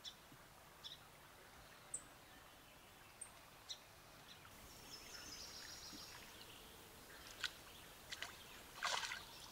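Quiet riverside ambience with a few short bird chirps, then near the end a brief splash at the water's surface.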